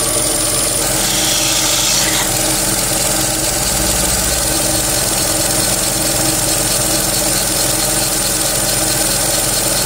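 Renault Twingo III's SCe70 three-cylinder engine idling steadily, with the accessory belt running over a pulley that gives a high-pitched squeal, which the owner puts down to the pulley lacking lubrication.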